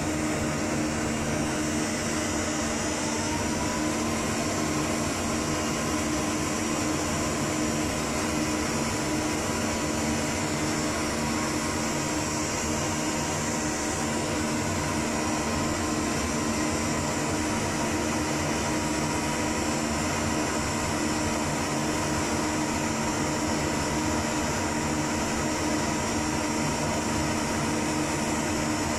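Steady whir of equipment cooling fans with a low electrical hum. A faint whine rises in pitch a few seconds in and then holds steady.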